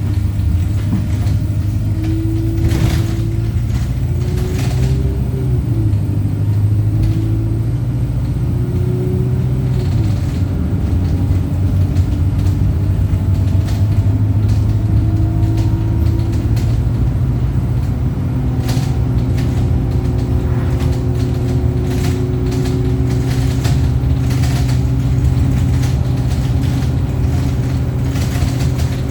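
Wright StreetLite single-deck bus on the move, recorded on board: the steady drone of its four-cylinder diesel engine. A whine from the engine and driveline rises and falls in pitch as the bus changes speed, with a few brief rattles among it.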